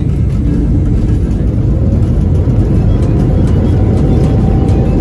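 Loud, steady rumble of an airliner's landing roll, heard from inside the passenger cabin as the plane speeds down the runway.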